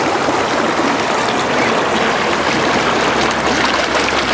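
Shallow river water rushing over a rocky bed, a steady rush.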